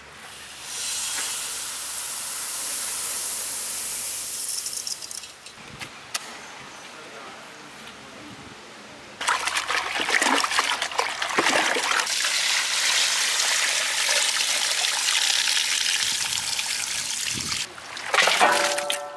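Seeraga samba rice grains poured from a steel plate into a pot of water, a steady hiss for a few seconds. Then, after a quieter stretch, hands swish and churn the soaking rice in the pot of water, with continuous splashing for about eight seconds. A brief voice comes in near the end.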